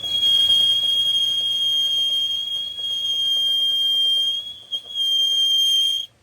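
A loud, steady high-pitched squeal on a single pitch with overtones. It starts abruptly, drops away briefly a little before five seconds in, and cuts off suddenly after about six seconds.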